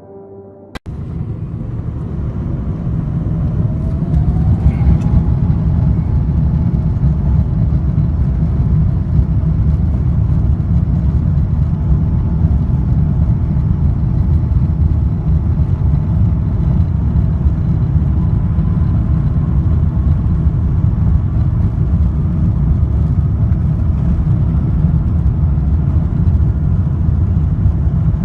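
Airbus A350's Rolls-Royce Trent XWB jet engines at takeoff power: a loud, steady, heavy low rumble that cuts in suddenly about a second in, with a faint whine rising in pitch a few seconds later.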